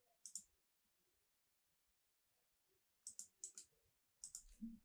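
Faint computer mouse clicks: one near the start, then a quick run of three about three seconds in and three more near the end.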